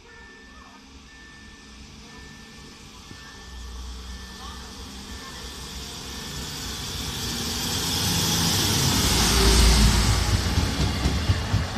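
KD diesel railbus (szynobus) coming into the platform: its engine and wheels on the rails grow steadily louder as it approaches, loudest about nine to ten seconds in as it draws alongside.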